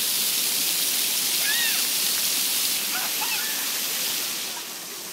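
Jets of an automatic walk-in water fountain spraying and splashing down in a steady rush, easing off and getting quieter near the end.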